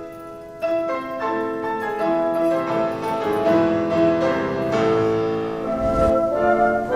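Symphony orchestra playing classical music, sustained notes with brass and keyboard-like tones, the sound swelling in about half a second in.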